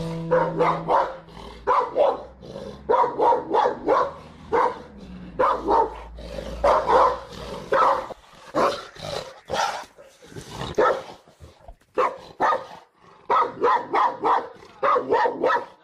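Caucasian Shepherd Dog barking over and over, in quick runs of several barks with short pauses between them.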